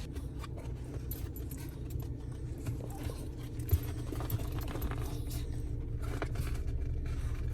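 Steady low rumble of a car's cabin with scattered light clicks and rattles, and one sharp knock a little before halfway.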